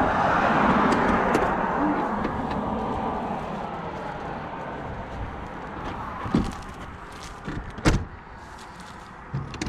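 A car goes by: a broad rush of road noise that swells in the first second and fades away over the next few. Then come two sharp knocks, about six and eight seconds in.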